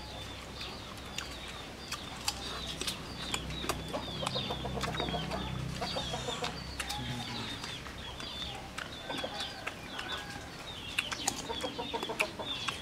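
Chickens clucking, with a quick run of clucks about four seconds in, while small birds chirp throughout. Short sharp clicks come now and then.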